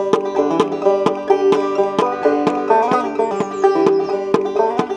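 Banjo played clawhammer style: a steady, bright tune of sharp struck notes, about two strong strokes a second, over ringing strings.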